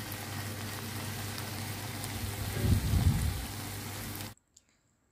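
Vegetables and pepperoni sizzling steadily in a hot frying pan, with a short louder spell of stirring about three seconds in. The sizzle cuts off abruptly a little over four seconds in.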